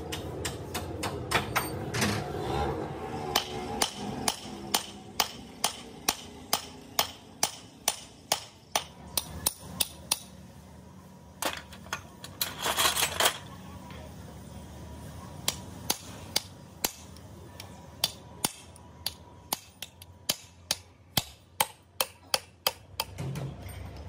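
Hammer blows on steel while a bulldozer hydraulic cylinder is being dismantled. The strikes come at about two a second in long runs, with a pause near the middle. A short clatter of metal comes in that pause.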